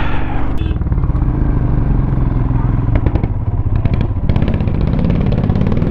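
Vehicle engine running steadily under load on a mountain climb, with light clattering clicks over it. The note shifts a little about four seconds in.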